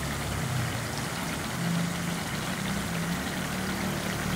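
Shredded potato deep-frying in hot oil in a pan: a steady sizzling hiss, with a low hum underneath.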